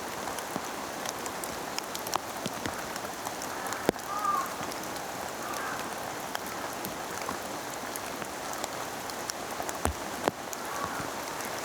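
Steady rain falling, an even patter with many separate drops ticking and a couple of heavier drip knocks, about four seconds in and near the end. A faint short chirp sounds about four seconds in.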